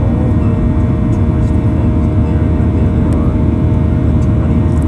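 Boeing 737-800's CFM56-7B turbofan engines and the airflow heard inside the cabin during the climb after takeoff: a loud, steady roar with a faint held tone running through it.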